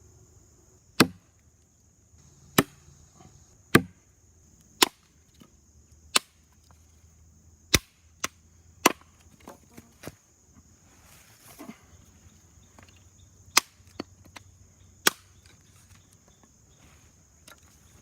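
Wood being struck with a hand tool: about ten sharp chopping knocks at uneven intervals, with a pause of a few seconds in the middle.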